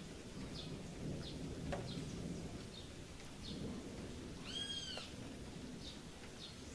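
Animal calls outdoors: short, high, falling chirps repeating at an even pace, and one longer call that rises and falls about two-thirds of the way through, over a steady low rumble.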